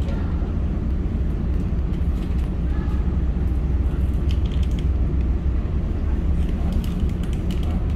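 A Star Ferry passenger ferry's engine runs with a steady low drone as the boat pulls away from the pier.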